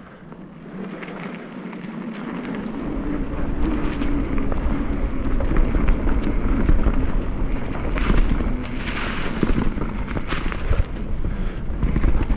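Mountain bike descending a dirt trail at speed: wind buffeting the microphone and tyres rumbling over the ground, with many sharp clicks and rattles from the bike over the rough surface. It grows louder over the first few seconds as speed builds.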